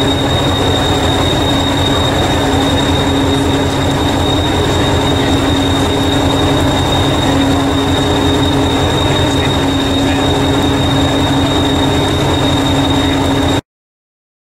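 Diesel-electric multiple unit, the Hastings unit 1001, idling at a platform: a steady low engine throb under a constant high whine. It cuts off suddenly near the end.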